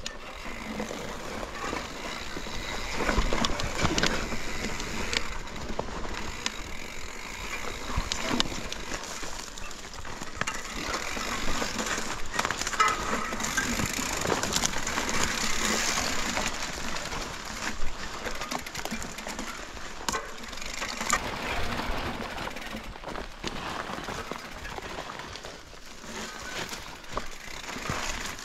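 YT Capra mountain bike rolling down a rocky dirt single track. The tyres crunch over gravel and rocks, and frequent sharp knocks and rattles come from the bike.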